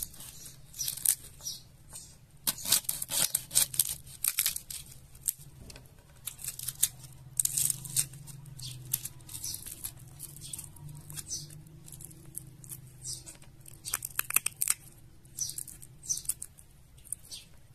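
Dried limes being broken apart by hand to pick out their kernels: an irregular run of crisp cracks, snaps and crinkles, with denser bursts of crackling now and then.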